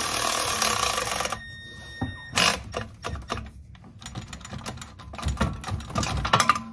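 A cordless power tool runs steadily, spinning an exhaust nut tight, and stops about a second in. Light metallic clicks and clinks of tools and hardware on the exhaust follow, busier near the end.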